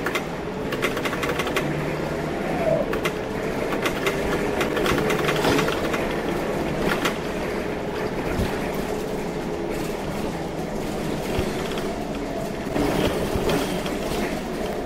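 Scania K230UB city bus's diesel engine and ZF Ecomat 6HP502C automatic gearbox under way, heard from the driver's cab. The engine note wavers and shifts pitch as the gearbox changes and kicks down, with scattered rattles and clicks from the cab.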